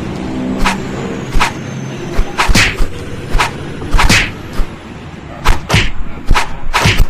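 Hammer blows on metal: about a dozen sharp, irregularly spaced strikes, some ringing briefly, as a worn bearing is knocked out for replacement.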